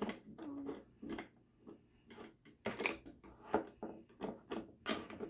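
Toy plastic dishes clattering as they are handled and stacked in a small plastic drying rack: an irregular series of light clicks and knocks.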